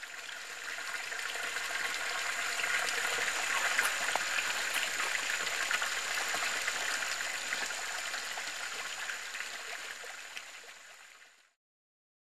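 Water pouring from a spa's spillover into a swimming pool: a steady splashing rush that fades in at the start and fades out near the end.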